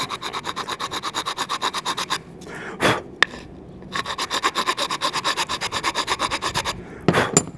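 Hand rasp cutting down the end of a wooden AK buttstock in quick, even back-and-forth strokes, about eight a second. The strokes come in two runs with a pause about two seconds in. A couple of sharp knocks fall in the pause, and there is a short clatter near the end. The stock is being trimmed to close an uneven gap where it fits into the receiver.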